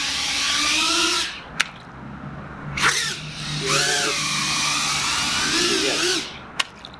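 Small FPV drone's four 1103 brushless motors and 2-inch props whining and throttling up and down in bursts: one ends about a second in, a short one comes near three seconds, and a longer one runs from about the middle to near the end. Two sharp ticks, one about a second and a half in and one near the end.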